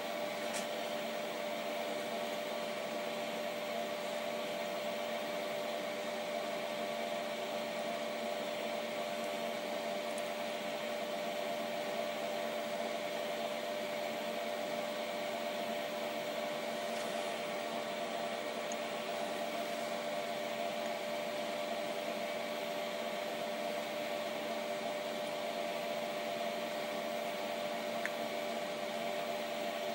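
Steady hum of workshop machinery, holding one constant tone with no change and no cutting.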